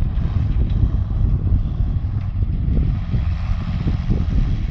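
Ursus 1224 tractor's diesel engine working under load as it pulls a disc harrow through stubble, a steady low drone.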